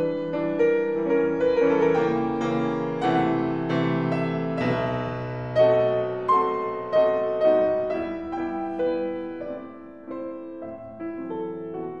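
Background piano music: single notes and chords ring out and die away. It grows quieter in the second half.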